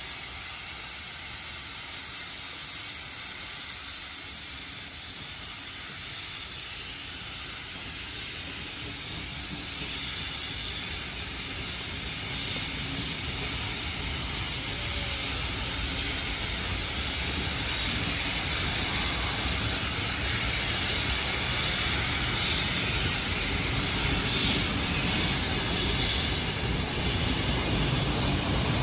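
Steam locomotive 5917 hissing steam while its train of heritage carriages rolls along the platform road, a rumble that grows steadily louder over the second half.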